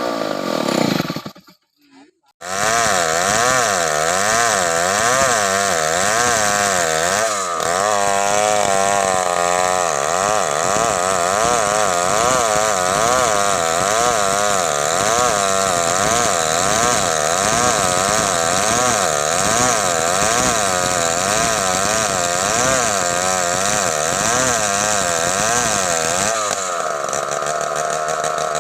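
Stihl chainsaw running hard while cutting wood, its pitch rising and falling over and over as the chain bites and frees. It cuts out briefly about two seconds in, then carries on.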